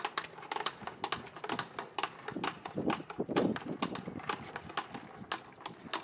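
A quick, irregular run of sharp clicks and knocks, with a muffled voice briefly about three seconds in.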